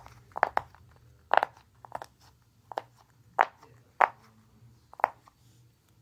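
Tie-dye silicone push-pop fidget toy: bubbles pressed in one at a time from the loud side, giving about nine sharp pops at uneven spacing, the last about a second before the end.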